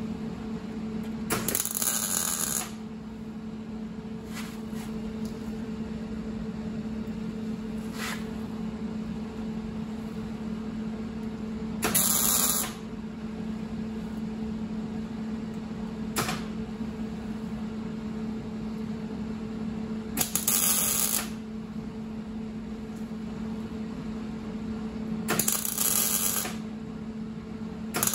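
MIG welder laying short tack welds on the rusted rear wheel arch of the car's quarter panel. Four crackling bursts of about a second each, several seconds apart, over the welder's steady hum.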